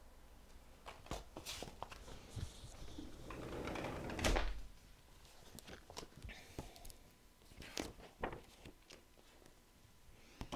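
Picture book being handled and a page turned: scattered soft taps and clicks, with a papery swish that builds and peaks about four seconds in.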